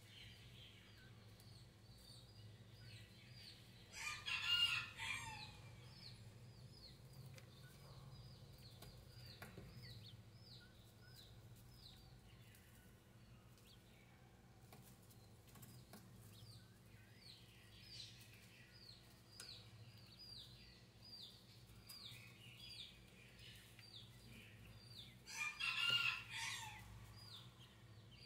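Newly hatched Chinese painted quail (king quail) chicks peeping faintly under the brooding hen: short, high, falling peeps repeating one to two a second. Twice, about four seconds in and near the end, a much louder call of about a second and a half from an adult bird cuts across.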